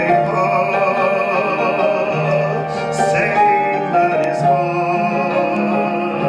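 Man singing long held notes with a wide vibrato into a handheld microphone over instrumental accompaniment, moving to a new note about three seconds in.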